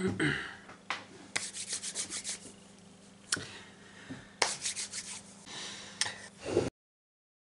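Rubbing and handling noise close to the microphone as clothing and fingers brush the camera, with sharp clicks and quick runs of ticks over a faint steady hum. It cuts off suddenly into dead silence near the end.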